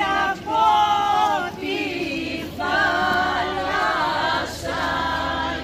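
A group of villagers singing a traditional Greek Palm Sunday dance song unaccompanied, in three short phrases with brief breaks between them.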